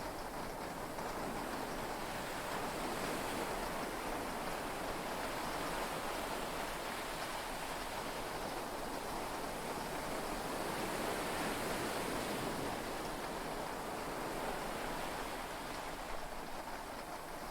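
Heavy rain and sea waves heard from inside a yacht cabin: a steady rushing noise that swells gently and eases off a couple of times, with no thunder claps.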